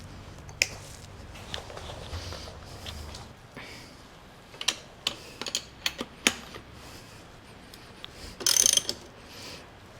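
Hand tools doing up 17 mm bolts on a motorcycle headlight mount: a string of sharp clicks and knocks about half a second apart in the middle, then a short ratcheting rasp near the end.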